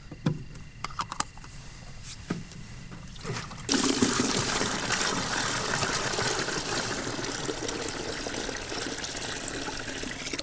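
Water poured steadily into a pot, starting suddenly about four seconds in after a few light handling clicks, and easing off slightly toward the end.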